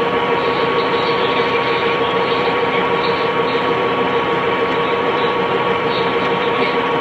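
Funai VCR/DVD combo player whining: a steady, loud, noisy drone with two unchanging tones in it.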